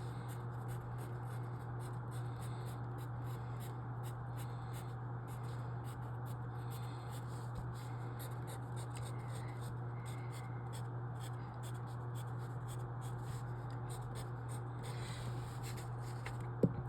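Writing on paper: a run of short scratching strokes over a steady low electrical hum, with two sharp clicks near the end.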